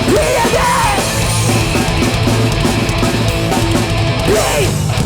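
A live hardcore punk band playing loudly with a dense, steady wall of sound: electric guitars, bass and drums.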